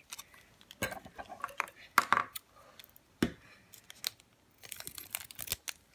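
Slime-kit packaging being cut open and handled: scattered small clicks, taps and brief rustles of plastic.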